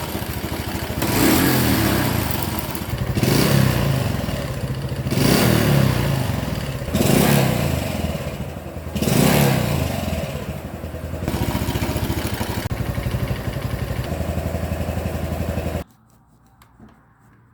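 Honda Super Cub 110's single-cylinder four-stroke engine revved in five short blips about two seconds apart, then running steadily before the sound cuts off suddenly near the end. Its abnormal engine noise is one the owner tags as piston slap and cam chain noise.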